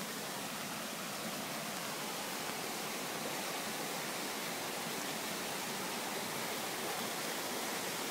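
Steady rushing of a rain-swollen creek, a continuous even hiss of moving water that grows slightly louder toward the end.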